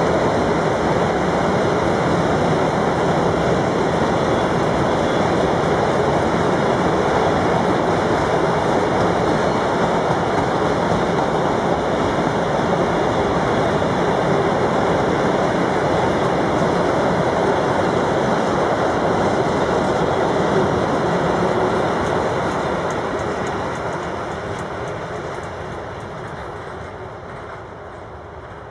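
Empty double-deck car-carrier freight wagons rolling past on the rails, a steady noise of wheels on track that fades away over the last several seconds as the train pulls off into the distance.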